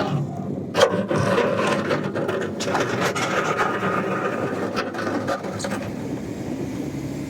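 Sand being scraped and pushed with a gritty rubbing sound, broken by several sharp knocks.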